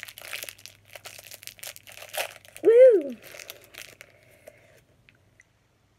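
A small plastic candy wrapper crinkling as it is twisted and pulled at to tear it open. About three seconds in, a brief, loud vocal 'mm' rising then falling in pitch cuts through the crinkling.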